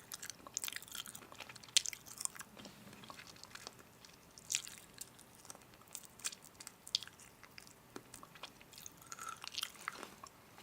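Close-up chewing and biting into crunchy food: irregular crisp crackles and clicks, some sharper bites standing out.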